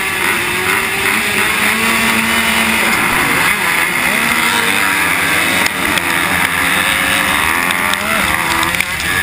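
A pack of motocross bikes revving at the start gate and accelerating off the line, several engines at once at different pitches rising and changing, with the rider's own bike loudest.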